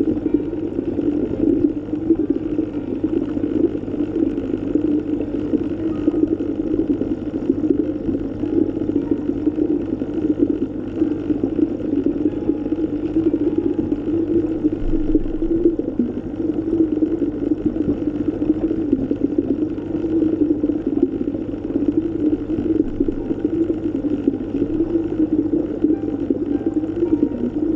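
Steady, muffled underwater ambience: a continuous low rumble of water heard through the water, with no distinct events.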